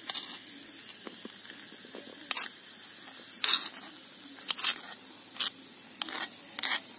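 Marinated meat frying in hot oil in a small clay pot, a steady sizzle with crackles. Sharp clicks and taps come every second or so as a metal spoon scrapes masala out of a clay dish into the pot.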